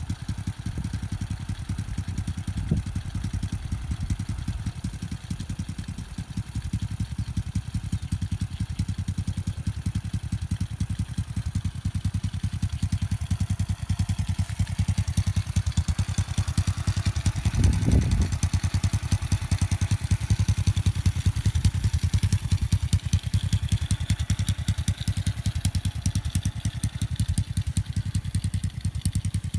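Small motorcycle engine of a homemade three-wheeler idling steadily, with a quick, even beat of exhaust pulses. A brief louder rumble comes about eighteen seconds in.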